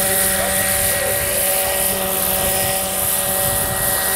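Turbine-powered large-scale RC Eurocopter EC-145 model helicopter hovering low, its turbine and rotors running steadily with a high whistle over a constant rushing sound.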